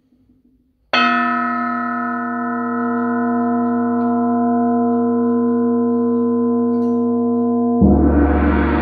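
A struck metal percussion instrument rings with several clear, steady tones, sustained and slowly fading, from about a second in. Near the end a large gong is struck with a soft beater and its dense shimmering wash with a deep hum swells up over it.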